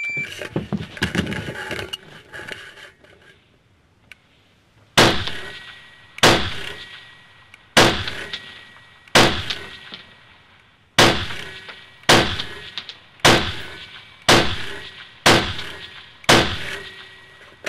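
Ten rifle shots at an uneven pace, one to two seconds apart, each followed by a short ringing echo inside a wooden shooting shed. Before them, for the first few seconds, comes a jumble of knocks and rattles as the shooter drops prone onto the plank deck with his rifle and gear.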